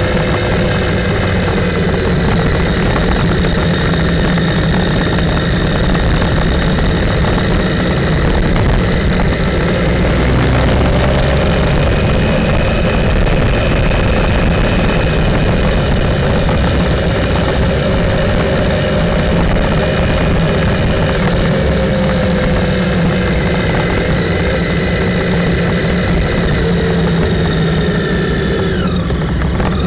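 Motorcycle engine running at a steady road speed, its note holding over a loud low rush of wind and road noise, then falling in pitch near the end as the bike slows.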